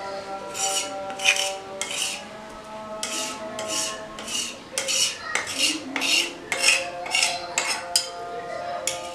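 A metal spatula scraping ground paste across a grinding board in about fifteen short, quick strokes, roughly two a second, gathering the paste into a lump.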